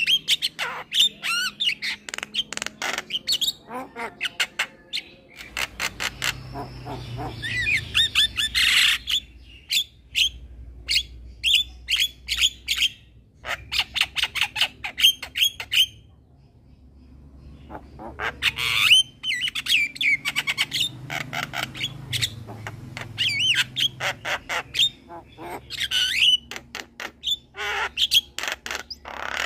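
Young male Javan myna (jalak kebo) singing a loud, busy song of rapid sharp clicks, squawks and short whistles, pausing for a moment a little past the middle before carrying on.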